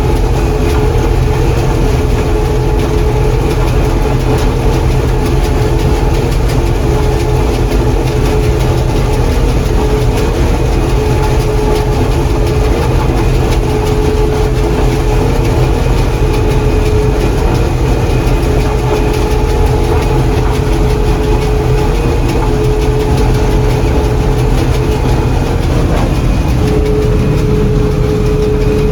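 John Deere 4400 combine running steadily while harvesting corn, heard from inside the cab: a heavy, even drone with a steady whine running through it.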